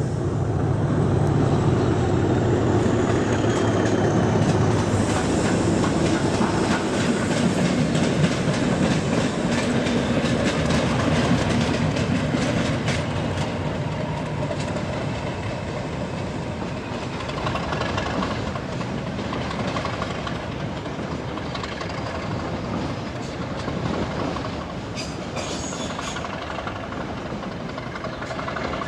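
DRS Class 37 diesel locomotive's English Electric engine running with a deep steady note as the train moves off, with wheels clicking over the points. The sound eases off gradually as the train pulls away.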